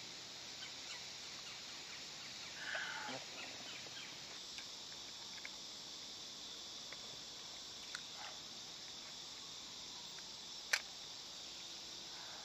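Steady chorus of summer insects, heard as an even high hiss, with a few faint short sounds, a brief louder sound about three seconds in, and one sharp click near the end.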